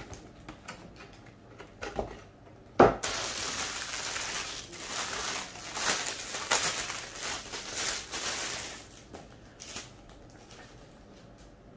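Clear plastic packaging bag crinkling and rustling as it is handled and pulled off a plush toy, fading out over the last few seconds. A single sharp knock sounds about three seconds in, the loudest moment.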